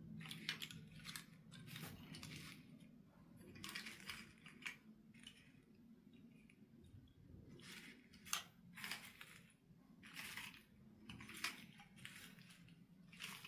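Faint, irregular rustles and clicks of small objects being handled, about a dozen short crackly bursts spread unevenly.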